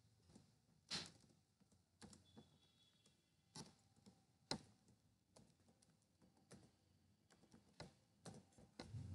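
Faint, irregular keystrokes on a computer keyboard, about a dozen separate clicks with uneven gaps, as a login email address is typed.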